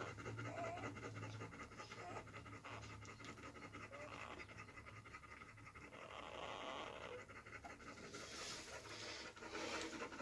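Belgian Malinois mother dog, freshly whelped, panting faintly and steadily while her newborn puppies nurse, with a few tiny short squeaks among them.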